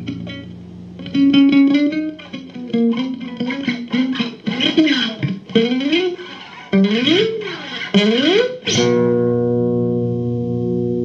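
Electric guitar played as a lead line: picked notes, then a run of string bends that slide up and down in pitch, ending in a held chord that rings on for the last couple of seconds.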